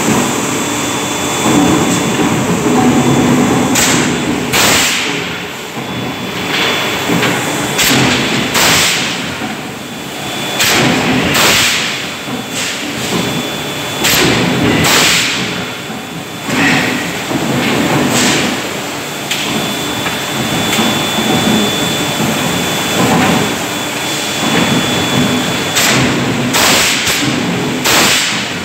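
Hot-forging press at work: a steady drone of machinery and a large fan, broken every few seconds by loud blows, often two in quick succession, as the press strikes red-hot metal in its dies.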